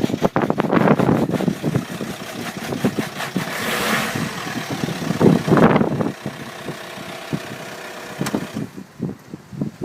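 Skoda Octavia vRS's PD170 2.0 TDI four-cylinder pumpe-düse diesel idling roughly and unevenly just after a cold start at 3°C, the rough idle that the owner puts down to its replacement recall injectors. It runs quieter and steadier from about six seconds in.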